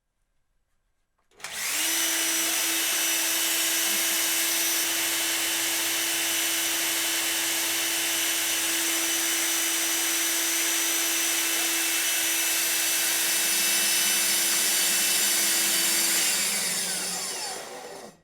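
Hilti DD 150-U diamond core drill motor starting up about a second in and running at a steady pitch for about fifteen seconds, then switched off and spinning down with a falling whine near the end.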